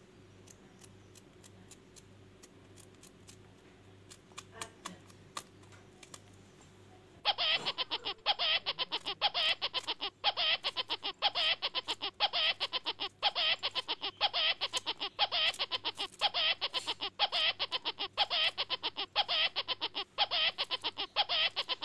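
Faint clicks of a knife cutting through cucumber held in the hand, then about seven seconds in a loud added sound track of rapid, warbling pulses cuts in suddenly and keeps going.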